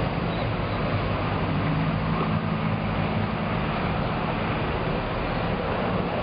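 Steady low engine rumble with a constant hum, over a continuous wash of traffic and harbour noise.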